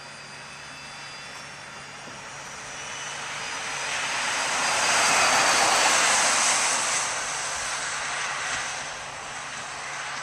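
Electric paratransit shuttle bus driving past at close range: its motor whine and tyre noise on the concrete grow as it approaches, are loudest as it passes about five to six seconds in, then fade as it drives away.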